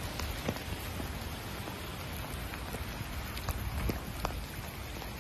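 Rain and hail coming down on wet pavement: a steady hiss with scattered sharp ticks of single impacts.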